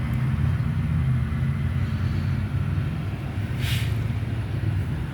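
Steady low rumble of a vehicle engine running, with a brief hiss about three and a half seconds in.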